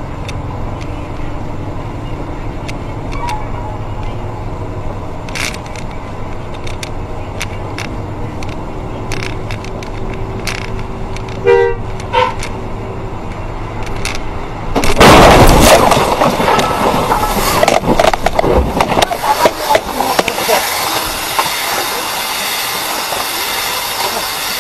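Bus running on a wet, rainy road with a steady engine rumble and tyre hiss, and a short horn blast sounding twice about halfway through. About fifteen seconds in comes a sudden, very loud crash of the bus accident, followed by several seconds of loud clattering noise that slowly eases.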